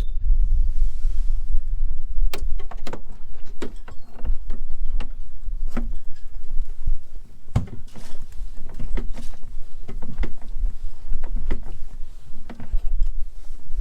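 Irregular sharp knocks and clicks, well over a dozen spread through, over a steady low rumble.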